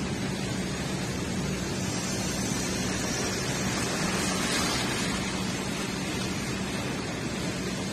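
Steady road noise from a moving car on a wet street: tyres hissing on the wet pavement over a low steady hum, swelling briefly about four seconds in as another car passes close by.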